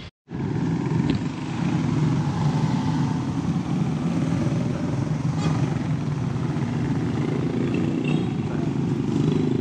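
Steady road traffic noise, with motorcycle and motorized tricycle engines running.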